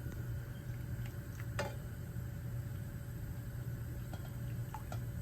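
Milk being poured into a pan of roasted gram flour and sugar cooking on the stove, over a low steady hum, with a few light clinks, the clearest about a second and a half in.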